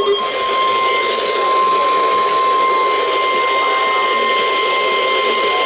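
NOAA Weather Radio warning alarm tone: one steady, loud, single-pitched beep near 1050 Hz over a background of hiss, cutting in right at the start and held throughout. It is the signal that a new weather warning is about to be read.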